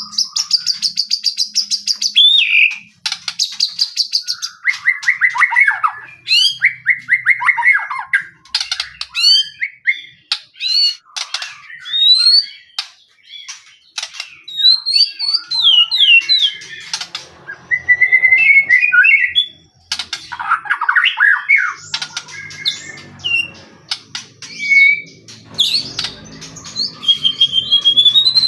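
White-rumped shama (murai batu) singing continuously in full voice: a loud, varied song of rapid trills, rising and falling whistles and sharp chips following one another with hardly a pause.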